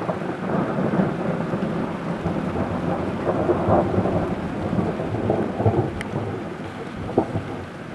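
Thunder rumbling on and off over steady rain, the rumble easing near the end. A single short click about six seconds in.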